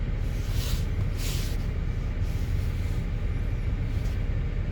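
The 3.6-litre V6 of a 2008 GMC Acadia idling as a steady low rumble, with two short hisses about half a second and a second and a quarter in. The engine is misfiring on several cylinders, traced to a failing coil and spark plug on cylinder 5.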